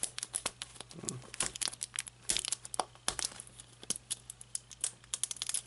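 Irregular crinkling and tearing crackles as fingers peel the paper label seal off a plastic gacha capsule.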